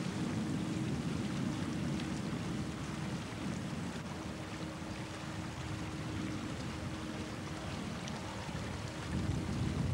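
A small boat moving across floodwater: a steady low rumble with a faint steady hum, which swells slightly near the end.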